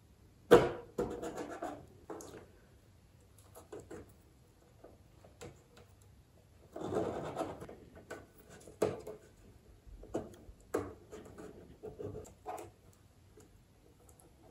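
Hands working masking tape onto a plastic model ship's deck and hull: scattered scratches, rubs and light taps as strips are pulled, laid and pressed down, with a sharper snap about half a second in and a longer rustle about seven seconds in. The tape holds the freshly glued deck down against the hull while the cement sets.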